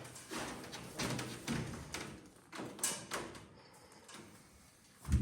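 Scattered knocks and scrapes as ceramic fireplace tiles are handled and nudged into place, with a heavy low thump at the very end.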